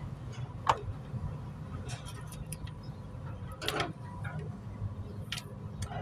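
A few sharp clicks and taps as stiff solid copper wire, a utility blade and pliers are handled and set down on a wooden plank, the loudest about a second in and just before four seconds, over a steady low hum.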